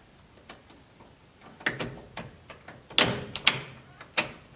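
Key going into a 1969 Chevrolet C10's ignition key cylinder and being turned through its positions: a series of metallic clicks from the lock, the sharpest about three seconds in.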